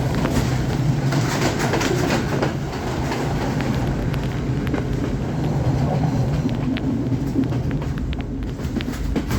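Passenger train running along the track: a steady low rumble, with scattered light clicks from the wheels and carriages coming in from about halfway through.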